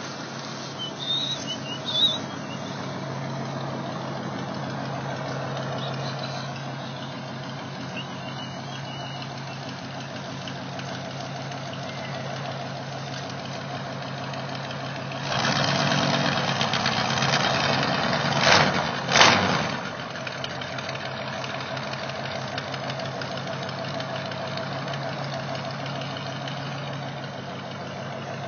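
Old pickup truck's engine running at idle, heard near the exhaust. About halfway through it gets louder for a few seconds, peaking sharply twice, then settles back to a steady idle.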